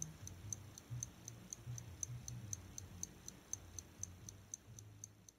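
Faint, fast ticking of a mechanical clock, about four even ticks a second, over a low background hum.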